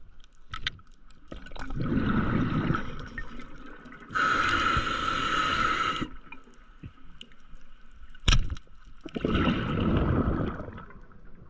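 Scuba diver breathing through a regulator underwater: gurgling exhaled bubbles about two seconds in and again near nine seconds, with a steady hissing inhalation between them, and a single sharp knock a little after eight seconds.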